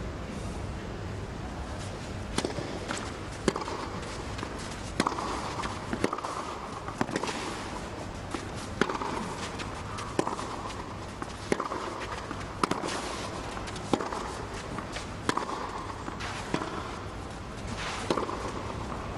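Tennis ball struck back and forth on a clay court: a serve about two seconds in, then a long baseline rally of sharp racquet hits about every second and a quarter, over a steady low crowd background.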